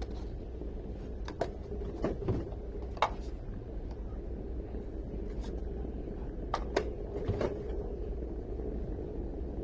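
Electric kettle heating with a steady low hum and rumble, broken by a few light clicks and knocks.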